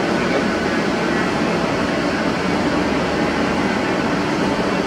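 Steady drone of factory machinery and ventilation in a plywood mill, an even noise that neither rises nor falls.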